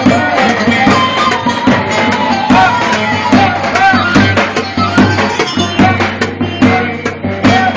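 Middle Eastern folk-style music with a steady drum beat and a wavering, ornamented melody over it.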